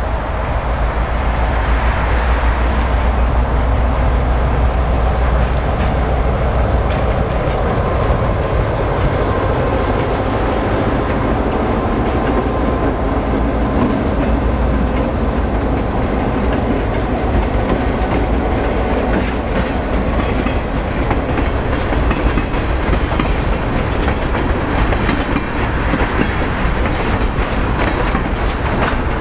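A train rolling past at close range: a steady, loud noise of wheels on rail, with a few sharp clicks along the way.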